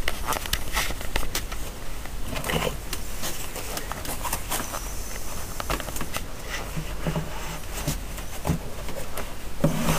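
Irregular rustles, light taps and clicks of hands handling a cardboard shipping box, with handling noise on the camera's microphone.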